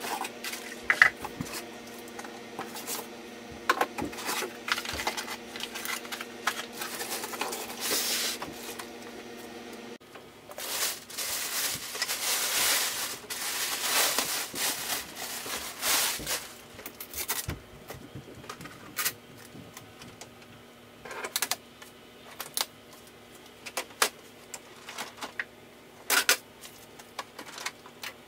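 Unboxing handling noise: cardboard packing scraped and knocked, then a stretch of plastic bag rustling as the wrapping is pulled off the printer, followed by scattered clicks and knocks of the printer's plastic body and lid being handled.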